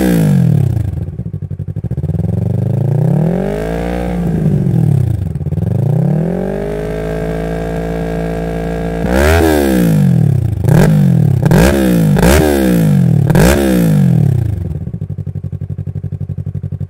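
Yamaha R3's 321 cc parallel-twin engine running through an M4 full-system exhaust with the baffle in, revved while standing: a few slow sweeps up and down, then a run of about five quick throttle blips, dropping back to a steady idle near the end.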